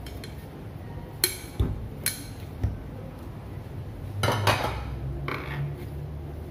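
A ceramic plate clinking and knocking against the countertop as bread dough is kneaded in it and turned out, then softer handling as the dough is worked on the counter. There are several sharp knocks in the first half and a cluster of clatter a little past the middle.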